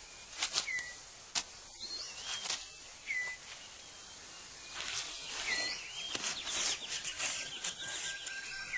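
Rainforest ambience: forest birds giving short whistled calls that hook and slide down in pitch, about six times, with a quick rattling run of notes past the middle and a thin held whistle near the end. Scattered dry clicks and rustles of leaves run through it as the six-plumed bird of paradise clears its display ground.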